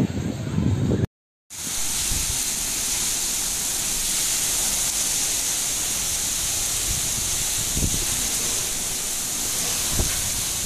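Heavy rain falling in a steady, even hiss. It starts after a low rumble cuts off about a second in and a brief moment of silence.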